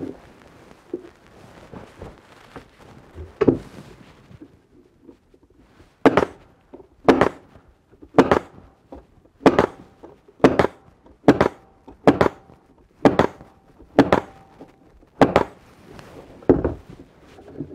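Pneumatic narrow crown stapler firing adhesive-coated staples into the wooden bars of a beehive frame: eleven sharp shots about once a second, starting about six seconds in. Before them, light knocks of the wooden frame parts being handled in the jig.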